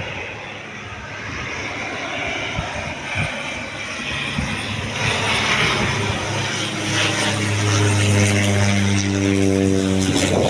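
Susi Air Cessna 208 Caravan single-engine turboprop passing low overhead on landing approach: propeller and engine drone that grows steadily louder. A steady, pitched hum joins about halfway through and cuts off suddenly near the end as the plane goes over.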